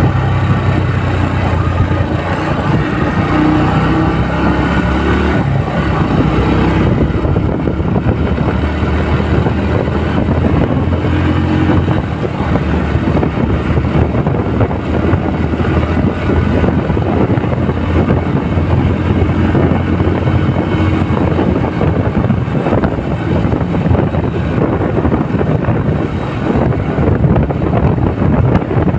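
Motorcycle engine running at a steady cruise while being ridden along a paved road.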